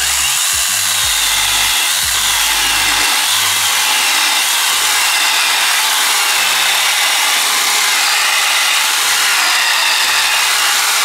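Yofidra 8-inch cordless mini chainsaw with a brushless motor, cutting through wood: a loud, steady run of chain-on-wood noise that starts suddenly and holds without a break.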